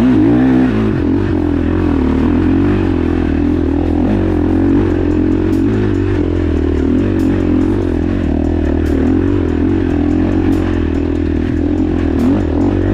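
Dirt bike engine running under way, its revs rising and falling continuously.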